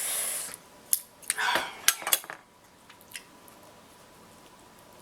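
Hard king crab shell being handled and pried at: a short hiss, then a few sharp clicks and crackles in the first couple of seconds, and only faint ticks after that. The shell is too tough to crack by hand.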